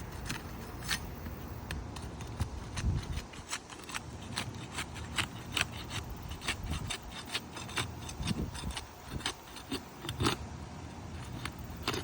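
Asphalt shingles being unsealed: the tabs are pried up off their adhesive seal strips, giving irregular scraping and many short crackling ticks.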